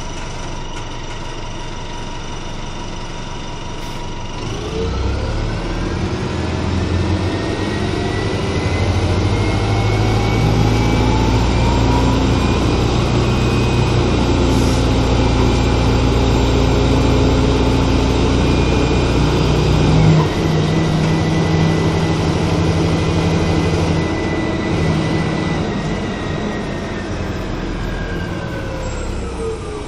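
A 1996 Nova Bus RTS transit bus's diesel engine and drivetrain, heard from inside the passenger cabin. It runs steadily for a few seconds, then the bus pulls away about four seconds in with a rising whine as it accelerates. There is a sudden drop in pitch about twenty seconds in, like a gear change, and the whine falls again as the bus slows near the end.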